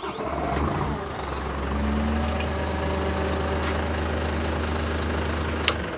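Water truck's diesel engine idling steadily just after start-up. Near the end there is a sharp click as the emergency stop is pressed, and the engine cuts out and begins to run down.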